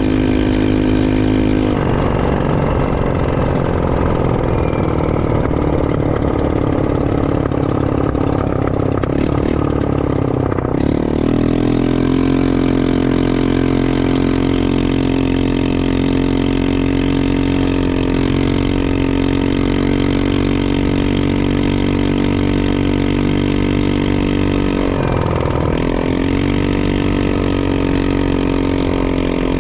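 ATV engine running under way, with a steady held note. The note drops as the throttle eases about two seconds in and climbs back about eleven seconds in, with a second brief dip and pick-up near the end.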